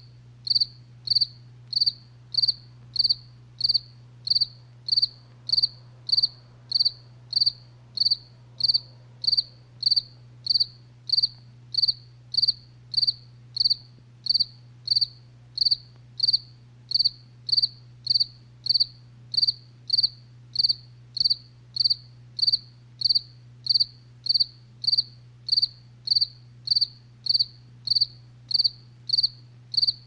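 A cricket chirping steadily at night: short, high-pitched chirps repeating evenly, a little under two a second.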